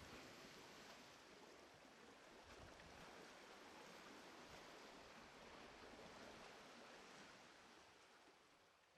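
Faint, steady wash of Black Sea waves, fading out near the end.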